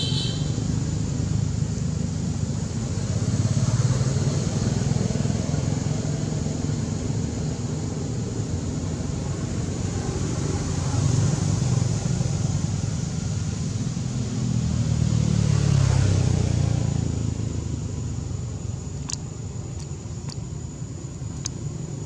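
Low rumble of passing road vehicles, swelling and fading several times, loudest about two-thirds of the way through. A steady high-pitched hum runs underneath, with a few faint ticks near the end.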